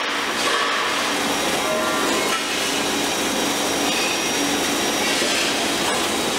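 Pepper decorticator, driven by a single-phase electric motor, running steadily with a continuous dense mechanical noise and a faint hum.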